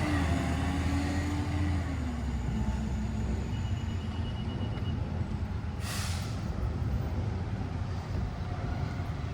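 Garbage truck's engine running with a steady low drone, its note dropping over the first couple of seconds. A short hiss of air from the truck's air brakes comes about six seconds in.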